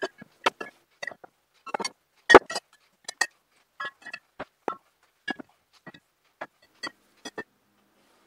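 Glass bottles of homebrew cider clinking against each other and knocking on a wooden shelf as they are set down and shuffled: a quick, irregular run of clinks, the loudest about two seconds in, stopping shortly before the end.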